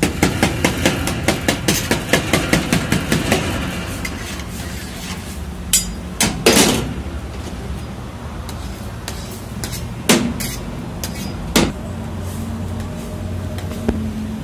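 Long metal spatula scraping and tapping against a steel karahi as chicken in gravy is stirred: quick strokes, about four or five a second, for the first few seconds, then a few single clangs spaced a couple of seconds apart.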